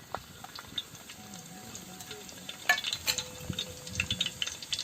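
Chopped ginger and garlic sizzling in hot coconut oil in a bell-metal uruli, with a spatula stirring and clicking against the pan. A couple of sharper knocks come around the middle.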